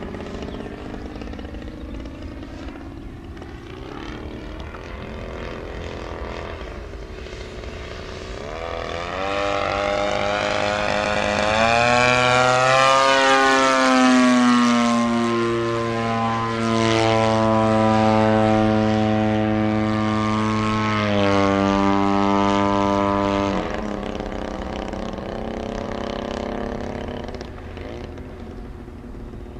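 Radio-controlled model airplane's engine and propeller on a pass overhead: the drone swells about nine seconds in, its pitch swinging up and then down as the plane goes by. It holds loud and steady, then drops suddenly about three-quarters of the way through and carries on more faintly.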